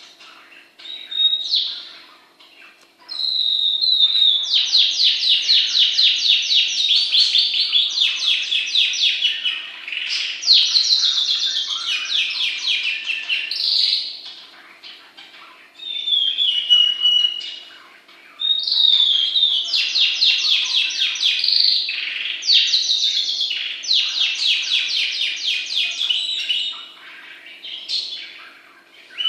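A bird singing long, fast trilled phrases of rapid high notes mixed with whistled slides, broken by a few short pauses.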